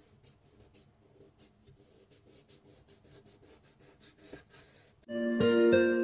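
Faint, quick, rhythmic scratching strokes, then about five seconds in, plucked-string music starts loudly with a bright, note-by-note melody.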